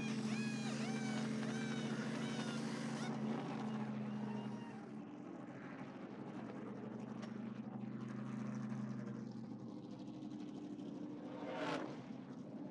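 NASCAR pit-road ambience: a steady low hum of race-car engines, with a quick run of high, falling squeals, about two a second, over the first three seconds. A brief rising whoosh comes near the end.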